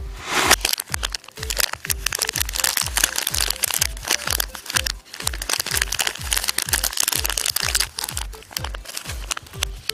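Crinkly plastic candy wrapper (a Monster Stamp candy stick pack) crackling and crinkling as it is picked up and turned over in the hands, over background music with a steady bass beat about twice a second.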